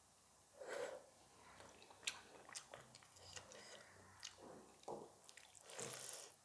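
Faint close-miked chewing of a mouthful of rice and curry, with a few sharp clicks about two and five seconds in.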